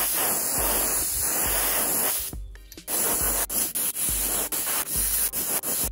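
Airbrush spraying paint: a steady hiss of compressed air and paint from the nozzle that stops briefly about two seconds in, then resumes in short on-off spurts as the trigger is worked.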